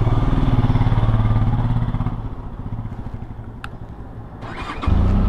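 Motorcycle engine running with a throbbing low note. It eases off in the middle and comes back strongly and suddenly near the end.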